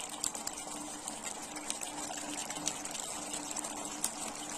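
Thick chicken kosha curry simmering in a pan with a little water, its gravy reducing: a steady bubbling hiss with frequent small pops and spits, over a faint steady hum.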